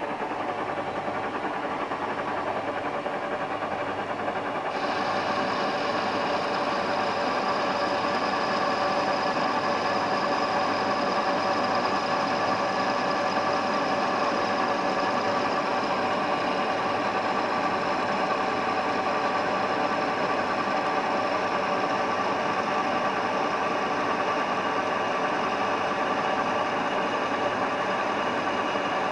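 1B61 metal lathe running steadily under load, taking a 3 mm-deep cut on a St35 steel blank; a higher whine joins about five seconds in and holds.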